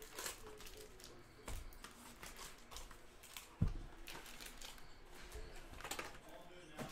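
Trading cards and pack wrappers being handled: light clicks and rustles as cards are flipped through, with one dull thump about three and a half seconds in.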